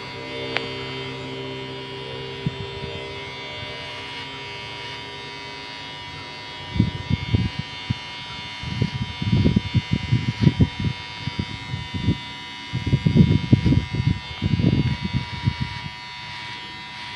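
Cordless electric hair clipper running with a steady buzzing hum while it cuts a short haircut. From about a third of the way in until near the end, louder uneven rough bursts come and go over the hum.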